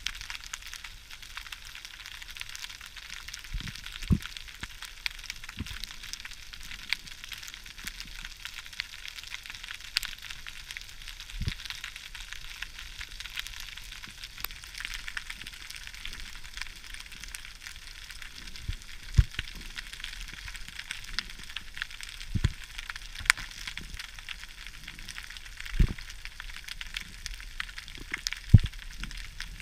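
Underwater ambience heard through an action camera's waterproof housing: a steady, fizzing crackle, with a handful of soft knocks scattered through it.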